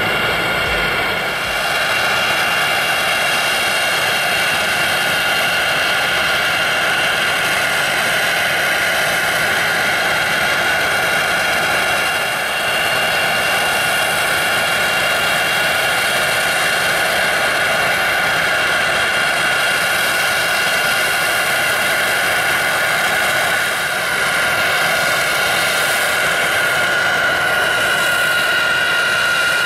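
Jet airliner turbines running steadily: a constant rush with a steady high-pitched whine on top.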